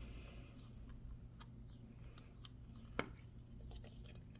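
Faint handling of small plastic toy parts and packaging while a miniature pie crust piece is being opened, with a few sharp clicks about a second and a half, two and a half and three seconds in.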